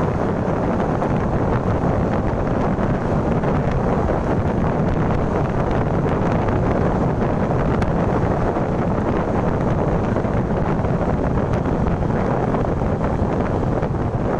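Steady wind noise buffeting the microphone, with the rumble of a moving vehicle underneath.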